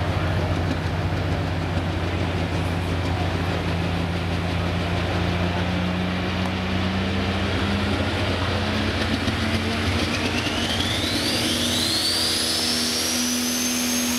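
Multi-turbocharged diesel engine of a Super Stock pulling tractor running at the start line. Its pitch steps up in the second half, and over the last few seconds a high whine rises steeply as the turbochargers spool up for the launch.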